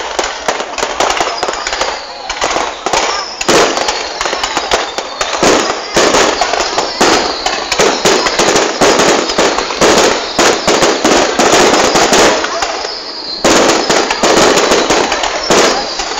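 Fireworks going off in a dense, continuous barrage of rapid bangs and crackles, with a few faint falling whistles.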